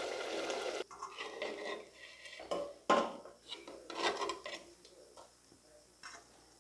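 A metal ladle scraping and knocking against an earthenware cooking pot in short, separate strokes as cooked chicken pieces are scooped out of oily gravy. A brief soft sizzle is heard first, stopping about a second in.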